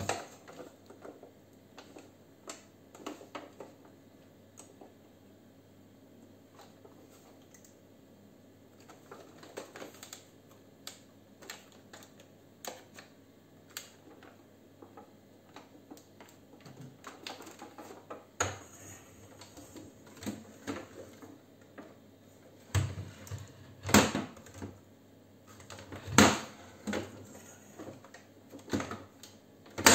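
Irregular plastic clicks and knocks from a toy vacuum cleaner being handled and moved about on a hard countertop. Its hard plastic wheels have no rubber treads. The loudest knocks come in the last few seconds.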